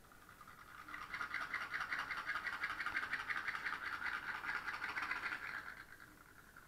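Pop pop boat's boiler popping in a rapid, rattling rhythm as it drives the toy boat through the water. It starts about a second in and dies away near the end.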